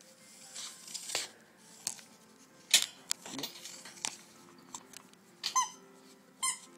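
A pitbull puppy playing with a rubber squeaky ball, giving short squeaks about five and a half and six and a half seconds in, among scattered rustles and taps as it wriggles on fleece bedding.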